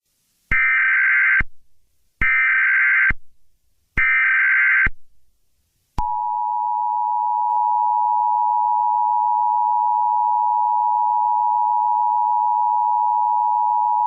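Emergency Alert System header: three bursts of SAME digital data, each about a second long, then the EAS attention signal, a steady two-tone 853 and 960 Hz tone starting about six seconds in and held for about eight seconds.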